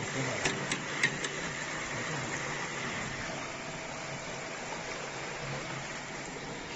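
Hot oil sizzling steadily in the vat of a commercial chicken pressure fryer as a wire basket of fried chicken drains above it. A few light metal clicks from the basket come within the first second and a half.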